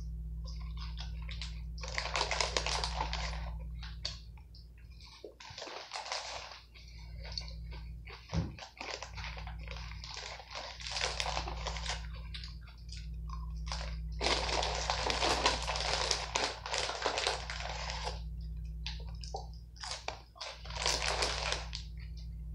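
Thin plastic salad bag crinkling in repeated bursts as a fork digs through it, with crunchy chewing of salad in between, over a steady low hum.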